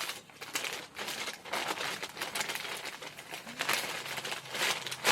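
Irregular rustling and crinkling handling noises, with a faint voice in the background.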